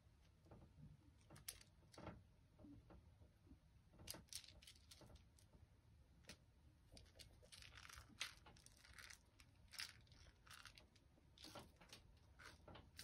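Faint scattered clicks, scrapes and scratchy rustles from a kitten playing with a toy mouse on a string: paws and claws on a laminate floor and the toy being batted and mouthed, denser scratching about halfway through.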